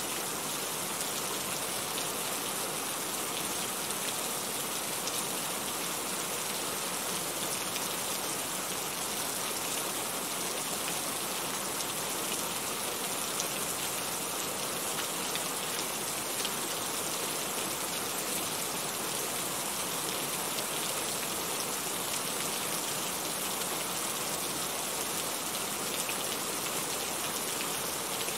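Steady rain falling, an even, unbroken hiss of many drops.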